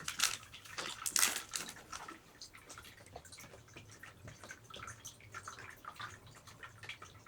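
Rustling and crinkling of decorations being handled and arranged, with two louder rustles in the first two seconds, then faint scattered clicks and rustles.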